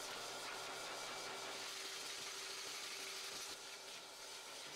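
Pet blow dryer running steadily: an even rush of air over a constant motor hum.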